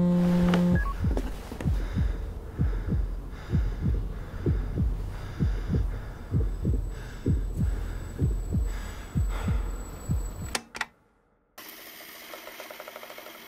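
Heartbeat sound effect: deep, even thuds about two a second, stopping abruptly near the end. A steady low hum cuts off just under a second in, and after a moment of silence a faint hiss with fast ticking follows.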